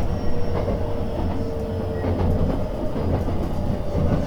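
JR West 287-series limited express train heard from inside the car while slowing for a station stop. A steady low rumble runs throughout, with wheel clicks over rail joints and a thin tone that slowly falls in pitch and fades out about two seconds in.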